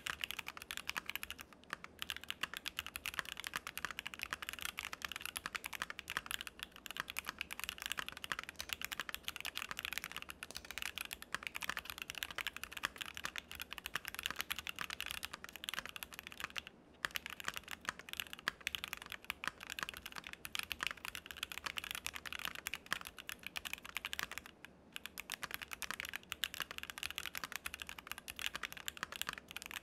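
Fast continuous typing on a Keychron Q2 mechanical keyboard with a steel plate and factory-lubed Akko Jelly Black linear switches, a clacky sound, pausing briefly three times.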